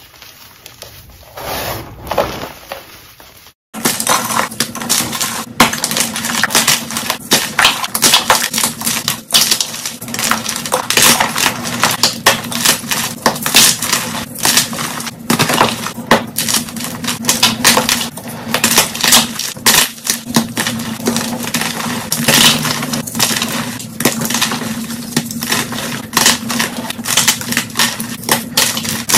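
Hands rubbing powdery chalk, then after a cut about four seconds in, hands crushing and crumbling blocks of white gym chalk in dense, rapid crunches, played back at double speed.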